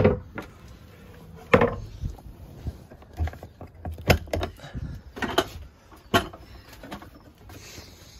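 A sailboat's wooden companionway hatch and boards being opened and handled: a string of sharp wooden knocks and clatters, the loudest right at the start and about a second and a half in.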